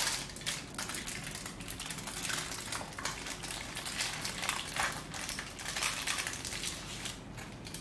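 Aluminium foil crinkling and rustling in irregular crackles as it is wrapped around a paratha roll and pressed tight by hand.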